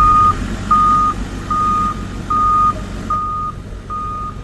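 Heavy vehicle's reversing alarm beeping at a steady even pace, six single-pitch beeps a little over one a second, over the low rumble of its engine running.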